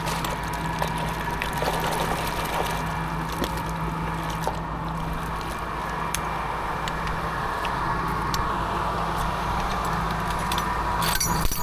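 Truck engine running steadily with a constant low hum, the concrete pump rig's engine. A short burst of noise about eleven seconds in.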